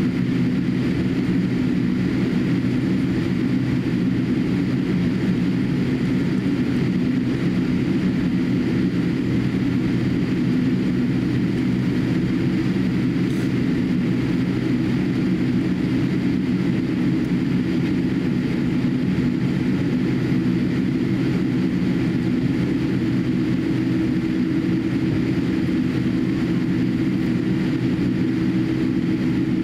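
Steady cabin noise of a Boeing 787-8 airliner taxiing, its GEnx-1B turbofans at low thrust: an even hum with several steady low tones.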